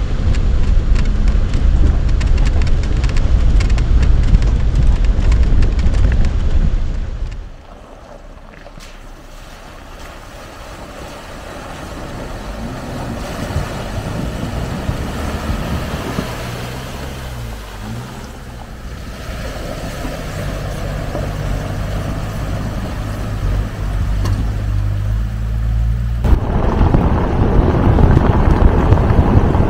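Wind buffeting the microphone of a camera mounted outside a Subaru Forester driving a gravel track, over a low rumble from the car. About seven seconds in, this drops away to a much quieter, steady hum with some rushing noise. The wind rumble comes back near the end.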